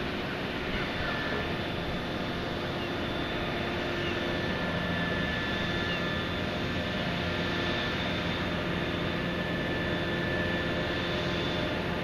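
Steady mechanical drone of the Nordic Giant dredger's machinery and its Liebherr P995 backhoe, with a few faint whining tones over the noise.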